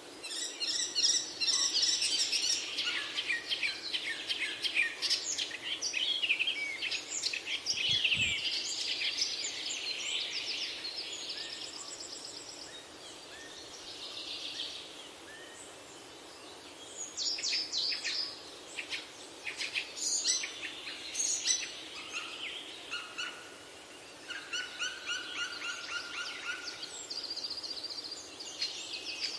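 Several songbirds chirping and singing, dense chirps and trills throughout with a thinner stretch in the middle. Near the end one bird repeats a short trilled phrase several times.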